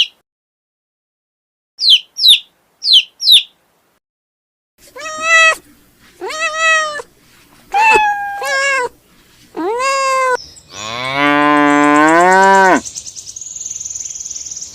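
A small bird chirps four times, then a cat meows four times. A cow follows with one long moo that rises in pitch, and near the end a high, fluttering buzz is heard.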